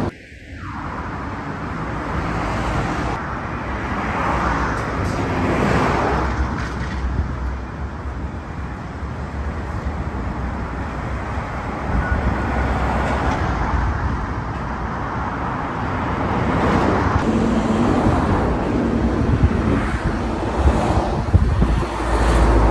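Heavy road traffic of medium and large diesel trucks passing close by one after another: engine rumble and tyre noise on asphalt, swelling and fading as each truck goes past.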